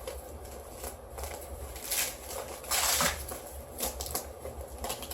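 Sling bag's shoulder strap being threaded and pulled through its buckle: rustling and scraping of strap and fabric with a few light clicks, the longest swish about three seconds in.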